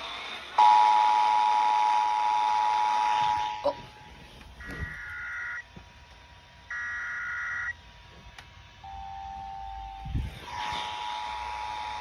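Emergency Alert System tones through small radio speakers. The two-tone attention signal sounds for about three seconds, then two short bursts of digital data tones follow about five and seven seconds in, with a fainter steady tone between them. The two-tone attention signal starts again near the end.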